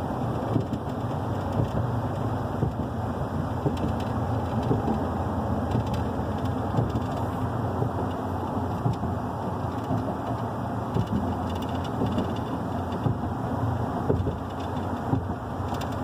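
A car driving at road speed: steady rumble of tyres and engine.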